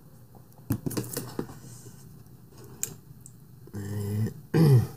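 A drink container being handled, with a few sharp clicks and knocks about a second in, then two short voiced sounds from a person near the end, the second falling in pitch.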